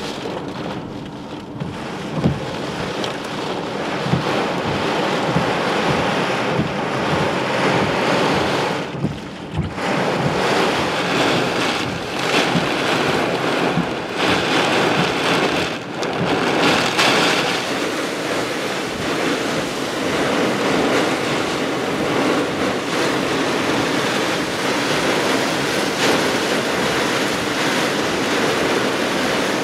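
Damaging microburst winds of a severe thunderstorm blowing hard in gusts, buffeting the microphone. The noise swells and eases, dropping off briefly twice.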